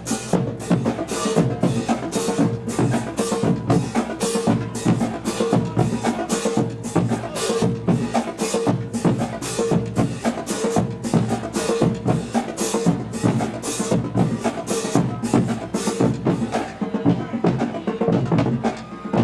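Marching band drumline playing a cadence: snare and bass drums beating a steady rhythm, with some held lower notes underneath. The drumming thins out near the end.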